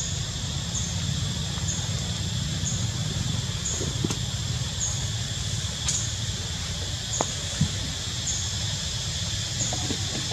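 Tropical forest ambience: a steady high insect drone with a short high call repeating about once a second, over a low rumble, with a few faint clicks.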